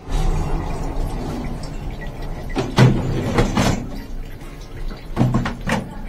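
Wire lower rack of a dishwasher being slid out of the wet tub, rattling with several sharp metal knocks and clatters, over a steady low hum.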